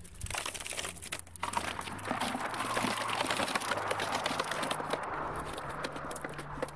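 Black nylon mesh keepnet being lifted and gathered by hand, the mesh rustling and crackling with many small ticks, building up about a second and a half in.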